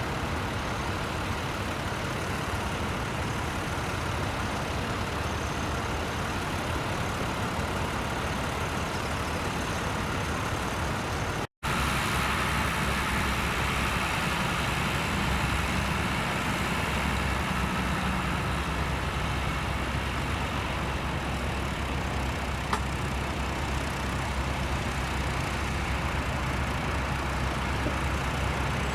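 Tractor engine running steadily. The sound cuts out for an instant about eleven seconds in, and then a deeper, stronger engine note carries on.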